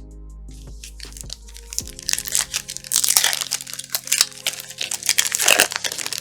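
Plastic trading-card pack wrapper crinkling and tearing open in loud crackling handfuls from about two seconds in, over quiet background music.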